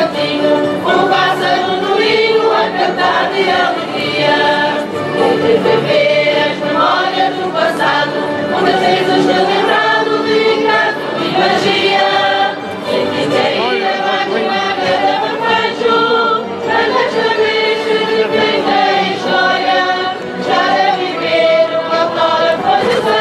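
A mixed choir of women, men and children singing a Reis carol, a traditional Portuguese Epiphany song.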